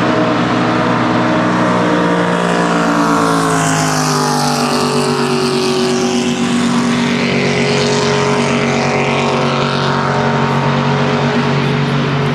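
Ski race boat's engine running flat out as it passes, its pitch falling from about two seconds in as it goes by, then holding steady, with water spray hiss over it.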